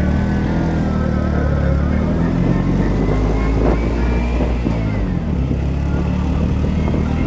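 Small motorcycle engine running steadily.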